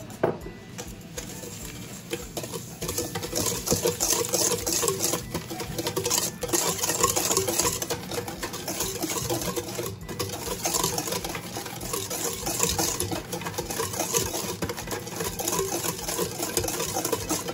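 Wire whisk beating egg yolks and sugar by hand in a stainless steel bowl: fast, steady clicking and scraping of the wires against the metal, louder from about three seconds in.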